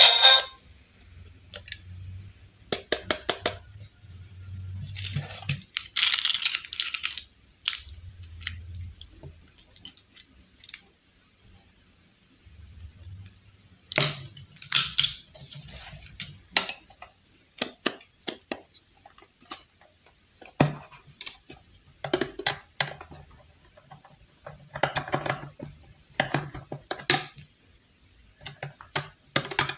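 Small plastic toy pieces being handled and set down on a table: scattered clicks, taps and short scratchy rustles. Near the end a screwdriver works at a screw in a plastic battery cover.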